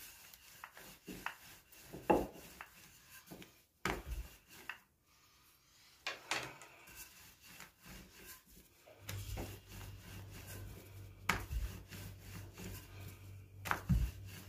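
Wooden rolling pin rolling out soft yeast dough on a granite countertop: uneven rubbing and rolling, with several sharp knocks of the pin and hands on the stone. A steady low hum comes in about halfway through.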